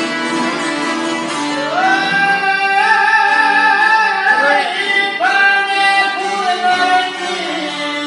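Albanian folk song: a singer holding long, wavering high notes in two phrases, starting about two seconds in and again about five seconds in, over plucked-string accompaniment.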